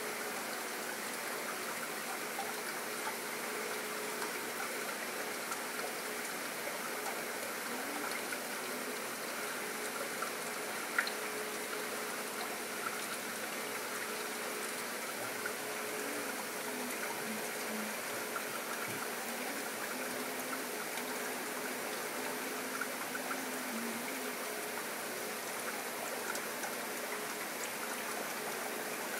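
Steady rushing and trickling of water circulating in a reef aquarium, with a faint steady hum underneath.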